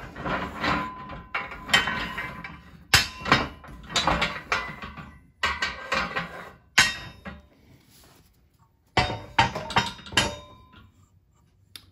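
Steel clanking and knocking as the hydraulic shop press's angle-iron bed rails and support pin are moved to raise the bed, with metal-on-metal hits that ring briefly, coming in clusters with a quieter pause about two-thirds of the way through.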